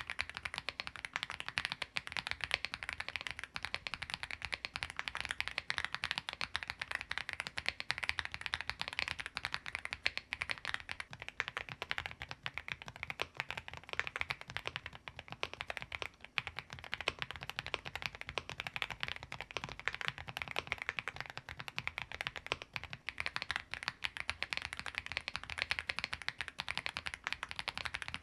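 Continuous fast typing on an AULA mechanical keyboard with linear switches: a dense, steady stream of key clacks with no pauses.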